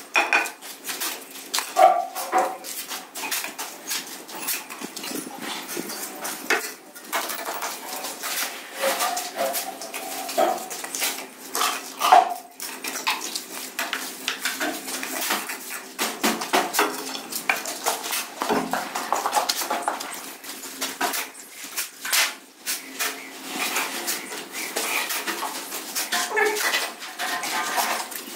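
Steel shovel blade scraping and clinking on a cement floor as wet cement mortar is shoveled and spread for a floor screed, a quick irregular run of scrapes and knocks.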